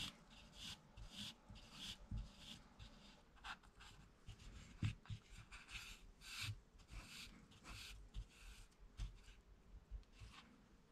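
Faint, irregular scratchy rustles of wool yarn being drawn through and wrapped around cotton cord as it is sewn with a needle.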